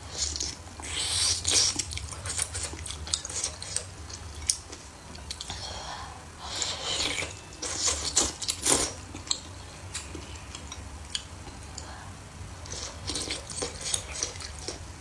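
Close-up eating sounds of spicy wontons in red-oil soup: several slurps and wet chewing, with chopsticks clicking against the bowl.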